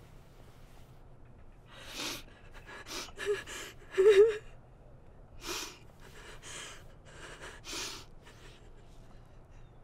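A young woman sobbing: a run of gasping, breathy sobs, with two short wavering cries a little after three and four seconds in, the second the loudest.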